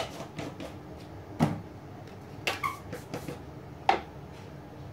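Kitchen handling noises between spice additions: about five short, sharp clicks and knocks as a spoon and spice containers are handled around a stainless steel mixing bowl.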